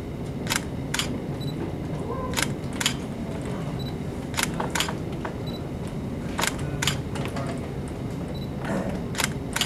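Camera shutter firing again and again: five pairs of sharp clicks, the two clicks in each pair under half a second apart, a new pair about every two seconds, over a steady low hum.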